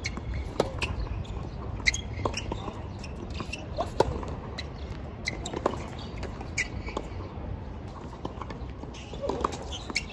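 Tennis balls being struck and bounced, heard as sharp knocks at irregular intervals with a few short high squeaks, over a steady low rumble.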